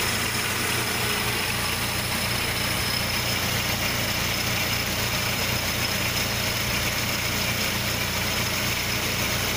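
Volkswagen Santana's AP four-cylinder engine idling steadily, heard from close by in the engine bay.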